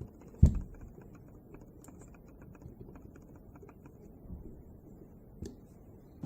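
Screwdriver working the small screws on a miniature generator, making light, irregular metal clicks and ticks, with one dull knock about half a second in.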